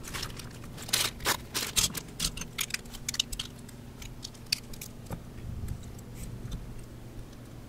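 Small plastic Mega Bloks construction pieces clicking and clattering as they are handled and snapped together. There is a quick flurry of sharp clicks over the first few seconds, then fewer and more spread out.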